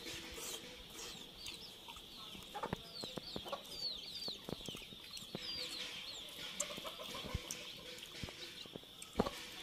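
Chicks peeping in many short, high, falling chirps, with a hen clucking low in the middle stretch. Close clicks and smacks of chewing chicken meat are scattered through, with one sharp click near the end.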